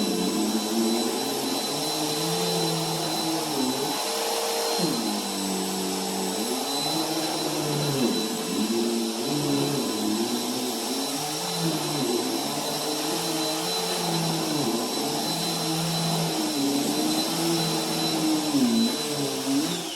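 Bissell bagless canister vacuum cleaner running over carpet: a steady high whine over the motor hum, whose low tones rise and fall again and again. Near the end it is switched off, and the motor winds down with a falling whine.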